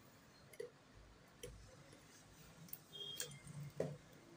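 A handful of light, irregular clicks and taps from plastic LED bulb parts being handled on a workbench.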